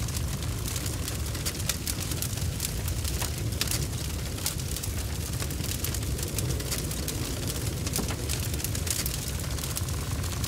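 Volcanic eruption sound effect: a steady low rumble with dense crackling over it.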